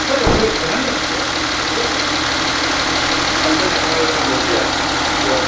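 Hyundai Veracruz engine idling steadily, running to circulate an engine-oil flush through the engine.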